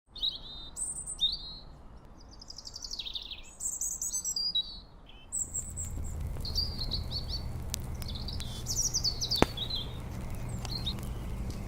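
Several songbirds chirping and singing, with short trills and sliding calls overlapping one another. A steady low rumble comes in about halfway.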